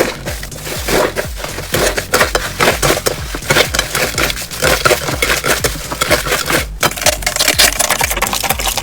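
Slime being squeezed and pressed by hand, making a dense, fast run of crackles and pops, with a brief drop near the end.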